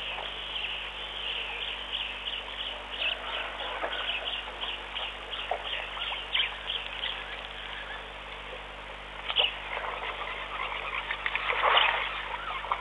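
Birds chirping in a quick series of short, high calls, a few each second, that thin out about halfway through. A brief louder noise comes near the end.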